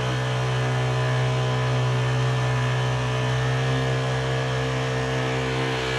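Honda GX35 four-stroke single-cylinder outboard opened up to high throttle. The revs rise right at the start, then hold a steady note.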